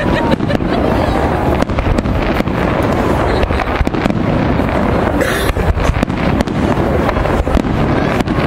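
Aerial fireworks going off: a rapid, irregular run of bangs and crackles over a constant low rumble, with one sharper, louder burst about five seconds in.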